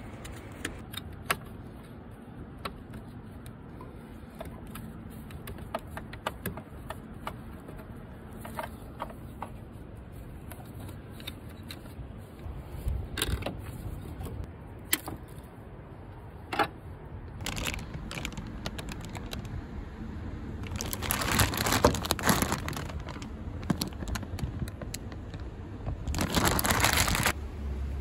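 Gloved hands working on coolant hoses and a hose clamp in a car's engine bay: scattered small clicks, taps and scrapes. Near the end come two longer, louder rustling scrapes, lasting about two seconds and just over a second.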